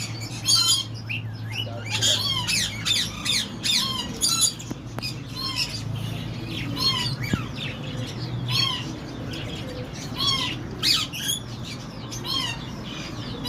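Slaty-headed parakeets giving short, shrill squawks and chirps over and over, with a steady low hum underneath.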